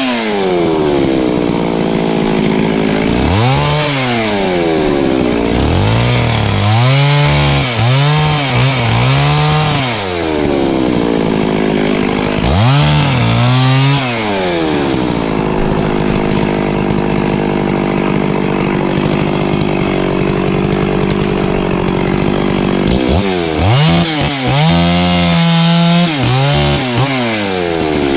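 Two-stroke chainsaw engine running, revved up and let back down in repeated short bursts, with a steady idle in between.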